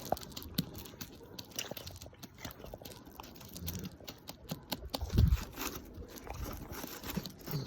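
Black Labrador retriever snoring, a crackly, clicking rattle with two deeper snores about halfway through.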